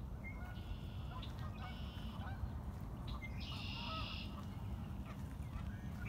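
Red-winged blackbirds singing. Three times, a short note is followed by a buzzy, trilled song, and a fourth song starts at the very end. Fainter, lower bird calls come in between.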